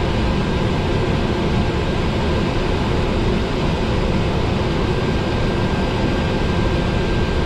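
TBM 850's Pratt & Whitney PT6A turboprop engine idling after start, heard inside the cockpit as a steady drone with a thin, steady high whine.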